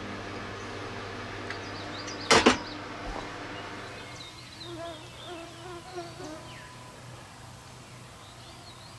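A steady hum for the first two seconds, then a loud, brief rush of noise about two and a half seconds in. After that comes a quieter evening forest ambience, with flying insects buzzing past in wavering whines and a few faint high chirps.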